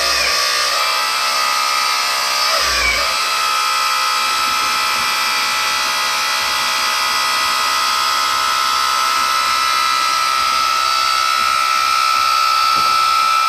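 Electric-driven hydraulic pump of a 1/12-scale RC4WD Earth Digger 4200XL excavator running with a steady, high-pitched whine as the boom and bucket are cycled to bleed air from the hydraulic lines; the pitch briefly wavers about three seconds in. This pump is quite noisy by nature.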